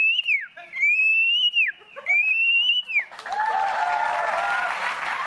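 A boy whistling an imitation of an oriental magpie-robin's (kacer's) song: three long, high whistled notes, each rising slightly and then dropping off at the end. About three seconds in, the studio audience breaks into applause, with a voice heard over it.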